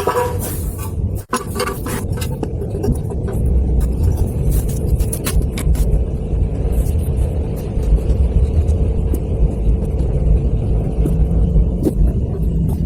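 Homemade four-stroke engine built from refrigerator compressor parts, running steadily with a loud low rumble and scattered sharp ticks; the sound cuts out for an instant about a second in.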